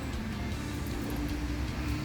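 Engine running steadily, with background music over it.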